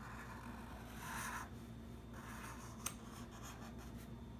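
Felt-tip marker drawing on corrugated cardboard: a few short scratchy strokes, with one sharp tick about three seconds in.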